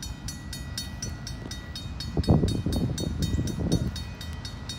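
Railroad grade-crossing bell ringing in quick even strokes, about four a second, over the low rumble of an approaching freight train. The rumble swells for a couple of seconds near the middle.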